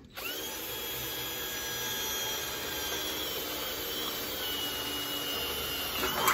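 Handheld power drill spinning up with a rising whine, then running steadily as it drills a hole through the race car's rear spoiler, stopping near the end.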